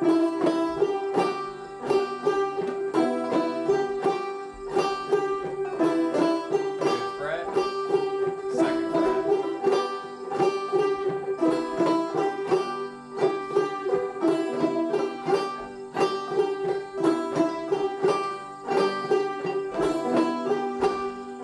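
Open-back banjo played clawhammer style: a steady, rhythmic old-time tune with a ringing note held under the melody throughout.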